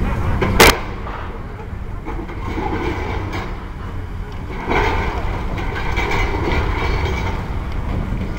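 High-reach demolition excavator tearing into a concrete factory building: a steady low rumble, a single sharp crack about half a second in, and from about halfway through a rushing clatter of broken concrete and debris pouring down the building's face.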